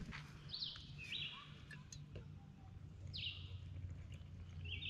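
A songbird calling: a handful of short, sharp down-slurred notes a second or so apart, over a faint steady low rumble.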